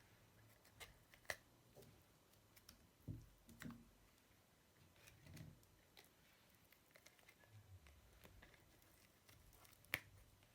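Faint slime handling: a few soft, low squishes and scattered sharp clicks, the loudest clicks about a second in and near the end.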